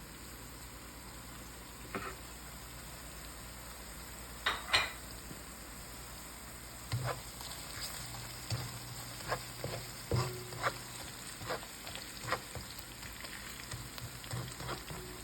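Onions, ginger, garlic and whole spices frying in olive oil in a wok, a steady sizzle. A utensil stirs and clinks against the wok now and then, more often in the second half.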